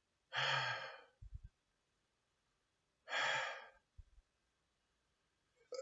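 A man sighing twice, two breathy exhales about three seconds apart, with a couple of faint low thumps between them.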